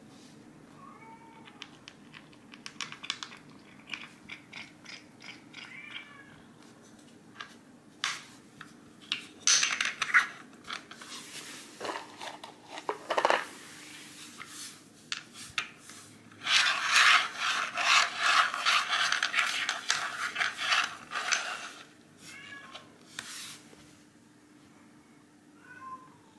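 A cat gives several short meows. Between them, plastic bottle caps click and scrape on the floor as they are shuffled by hand, with a loud scraping rub for about five seconds in the second half.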